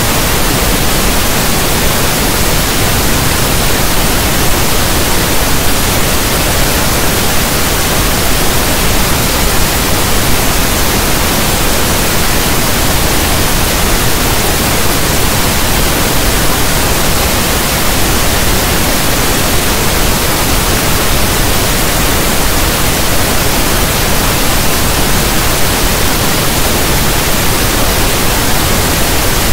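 Steady pink noise: an even, loud hiss like soft static from a radio not tuned to a station, unchanging throughout.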